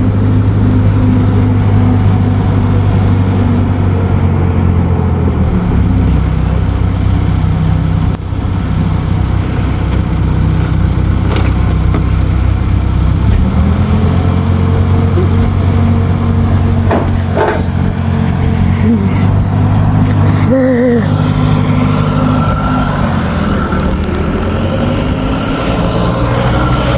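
Forklift engine running under load as it sets a mini excavator on a trailer, its pitch dropping about six seconds in and climbing again near the middle and the end. A few metal clanks sound in between.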